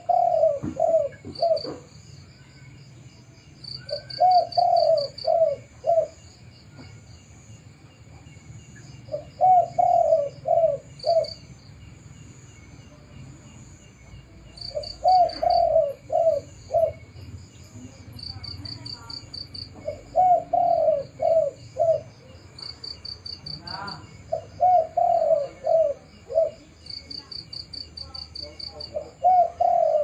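Spotted dove cooing: a phrase of four or five notes, the first one longest, repeated about every five seconds. Insects chirp steadily in the background.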